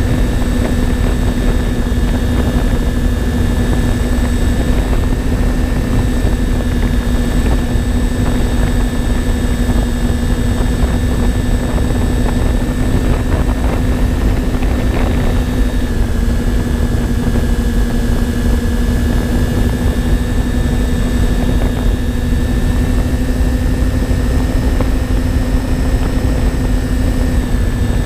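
Twin electric motors and propellers of a My Twin Dream FPV model plane in cruise, heard from the onboard camera: a steady, unbroken hum.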